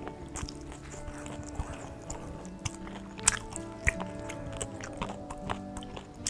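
Close-up chewing and biting on crisp kimchi pancake (kimchijeon), with short crunchy clicks scattered through, over background music.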